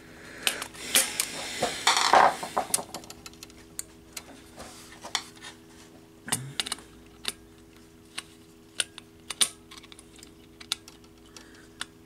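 Screwdriver tip clicking and scraping irregularly on a terminal screw of a plastic fire alarm mounting bracket as a wire lead is screwed down; the driver is not biting this type of screw well.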